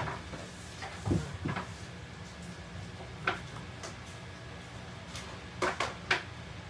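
A handful of short knocks and clatters, about five in all: one about a second in, another near the middle and a close pair near the end. Under them runs a steady low hum.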